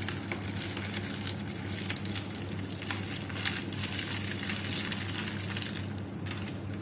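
Metal spoon stirring ice cubes in glasses of soda, giving scattered light clinks against the ice and glass over a steady low hum.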